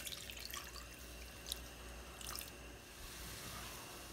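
Water poured from a small glass bowl onto granulated sugar in a nonstick pan, a short splashing trickle at the start. It is followed by faint wet scraping with a sharp click or two as a spatula stirs the sugar and water into syrup.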